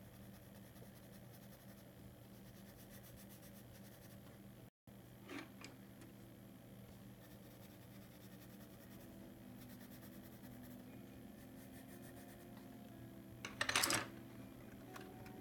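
Coloured pencil scratching faintly on paper in short shading strokes, over a steady low hum. Near the end comes one brief, louder handling noise as the hand leaves the drawing.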